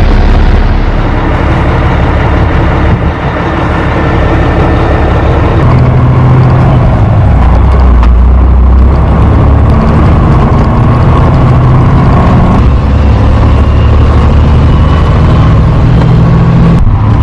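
Heavy grain truck's diesel engine running steadily under load, its pitch shifting in steps about six and about thirteen seconds in.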